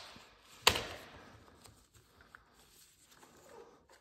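A single sharp knock a little under a second in, then faint handling sounds, as hands set down tools and work a loosened bolt and valve-cover part off a small V-twin mower engine.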